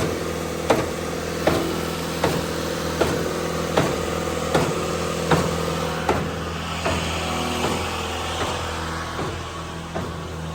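Olin 545 trailer concrete pump pumping concrete: its engine drones steadily while a sharp clunk comes about every three-quarters of a second as the pistons change stroke.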